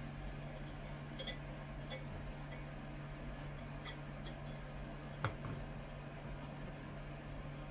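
A few light clinks and taps of kitchenware, the sharpest and loudest about five seconds in, over a steady low hum.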